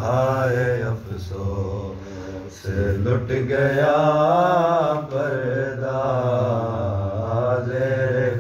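A man chanting a noha, a lament for Husain, unaccompanied, in long wavering held notes. The voice breaks off briefly about a second in and again around two and a half seconds in, over a steady low hum.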